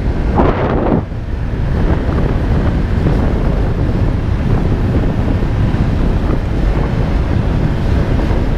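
Wind rumbling over the camera microphone of a moving snowmobile, with the vehicle running under it. A brief louder rush comes just under a second in.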